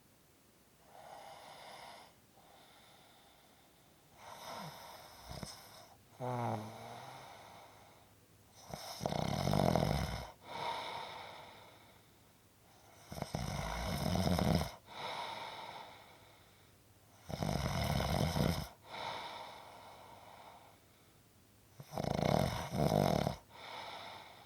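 A person snoring in a slow rhythm. Soft breaths at first, then a squeak that slides down in pitch about six seconds in, then four loud snores about four seconds apart, each followed by a softer outbreath.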